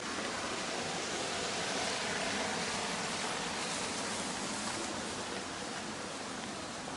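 Running water of a stream rushing steadily, swelling slightly a couple of seconds in.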